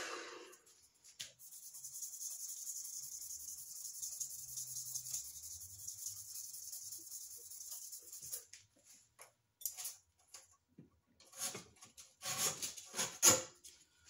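Sandpaper rubbing on a bubinga pen blank on the wood lathe, a soft steady hiss, after a compressed-air blast dies away at the very start. From about halfway on come irregular scuffs and rustles of sandpaper being handled, the loudest near the end.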